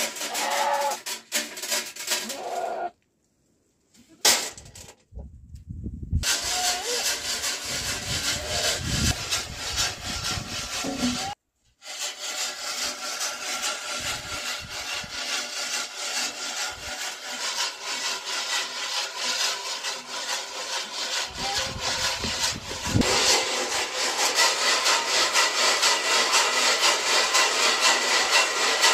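Maize kernels rattling and scraping inside a closed black metal roasting box shaken back and forth over a wood fire, a rapid, even rasping rhythm that breaks off briefly about halfway.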